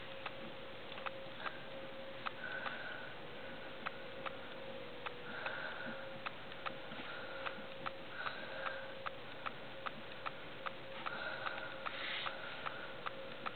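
Pen scratching on spiral-notebook paper in short strokes, with faint ticking about twice a second and a steady faint hum underneath.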